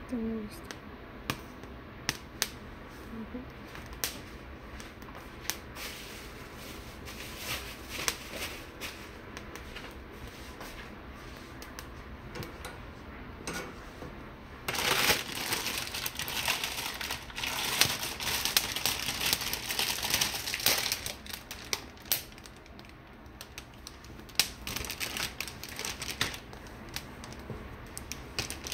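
Poblano peppers charring directly over a gas burner flame: scattered single pops and ticks over a steady low hiss, then about halfway through a dense, louder crackling lasting several seconds that eases off, with lighter crackling near the end.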